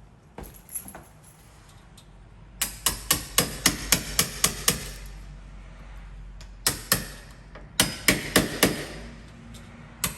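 Hammer striking a wood chisel to cut a mortise in wood for a deadbolt. A quick run of about nine sharp taps a few seconds in, then a few more in a second group later.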